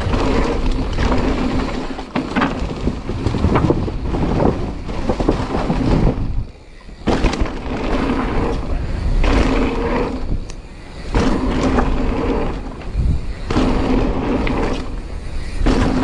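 Mountain bike descending a dirt trail at speed, heard from a camera on the rider: wind buffeting the microphone over tyres rolling and rattling on dirt and gravel. Twice the noise drops away briefly.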